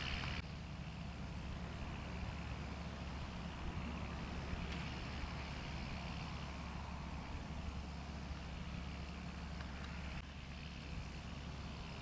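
Distant John Deere 6920S tractor's six-cylinder diesel engine running steadily under load, pulling front and rear ploughs through grass ground, heard as a low, even drone.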